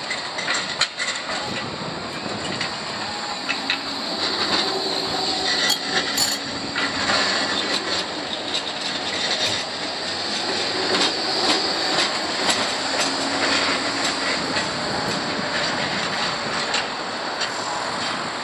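Bombardier Flexity 2 tram passing close by, with the running noise of its steel wheels on the rails and repeated sharp clicks as they cross the track joints and points.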